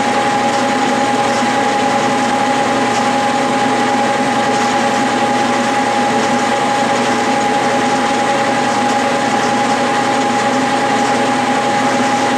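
Clausing metal lathe running steadily at about 800 RPM, with a constant whine over a mechanical hum.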